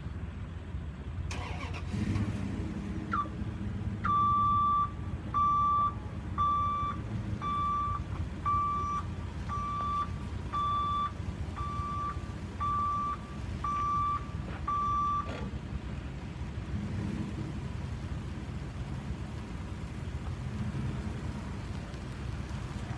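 Backup alarm on a 1999 Dodge 2500 service truck beeping about once a second while the truck reverses, over its engine running. The beeping stops about fifteen seconds in and the engine keeps running.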